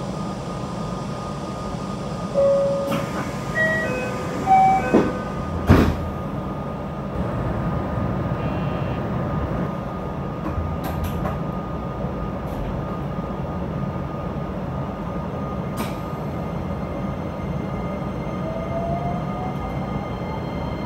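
A JR West 227 series electric train running on the line, its Toyo IGBT-VVVF inverter sounding throughout. A few short tones come in the first five seconds and there is one sharp thump about six seconds in. Near the end the inverter whine rises in pitch as the train picks up speed.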